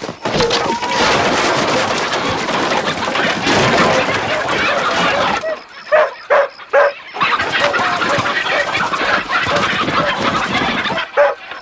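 A crowd of chickens squawking in alarm, a dense loud clamour, broken about five and a half seconds in by dogs barking in short bursts before the squawking picks up again.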